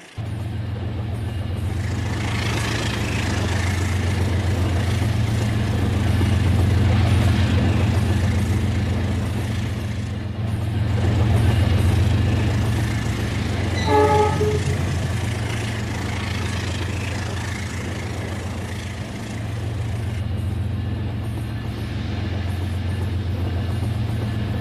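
Remote-control Rail King toy train running, a steady low hum that swells and fades in loudness. A short horn toot sounds about 14 seconds in.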